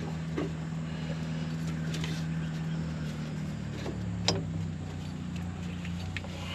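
A steady low engine hum from an idling engine, with a few sharp metallic clicks and knocks as belts are worked over the pulleys.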